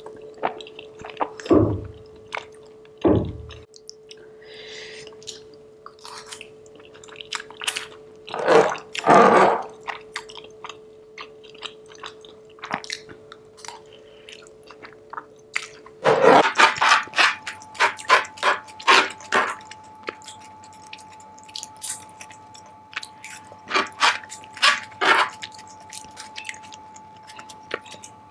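Close-miked chewing and lip-smacking of a person eating spoonfuls of vegetable biryani, with many sharp mouth clicks that come thick and fast from about halfway.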